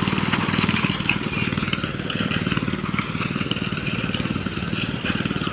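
Small engine of a concrete power trowel running steadily with a fast, even putter.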